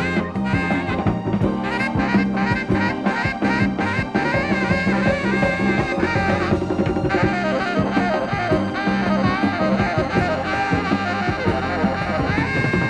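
Live band music led by a tenor saxophone playing a melody of bending, sliding notes over drum kit and electric bass; a new sustained sax note comes in near the end.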